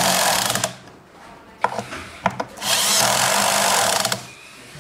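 Cordless drill-driver running in two bursts as it drives in the screws that fasten a wheel to a balance scooter's chassis. A short burst comes at the start, then a longer one of about a second and a half from about two and a half seconds in, with a few light clicks between.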